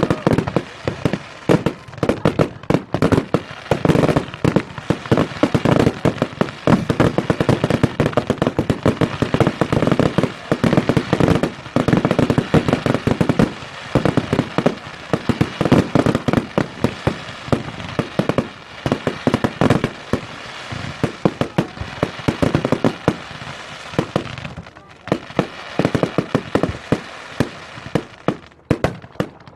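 Fireworks display: a dense, continuous barrage of bangs and crackles from many fireworks going off in quick succession. It thins out for a moment near the end.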